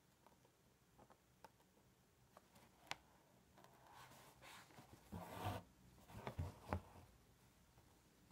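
Faint scratching and ticking of an embroidery needle piercing taut cotton drill in a hoop as perle thread is drawn through, working blanket stitch. A longer rustle of fabric and thread comes a little past halfway.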